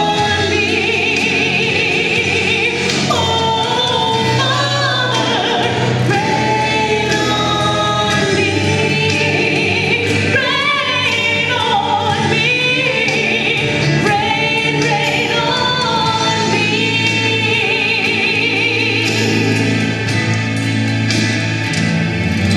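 Christian gospel song performed live: singing that holds long notes and slides through runs, over steady instrumental accompaniment.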